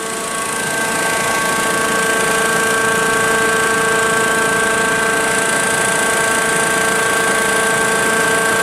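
Homemade K'NEX siren, a 16-port stator with a motor-driven chopper, running at speed and sounding a single steady tone over the rush of air and the motor's whir. It gets a little louder about a second in, then holds a steady pitch.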